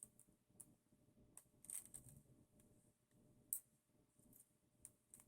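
Near silence with a few faint, scattered clicks and taps of small metal parts and a hex key being handled.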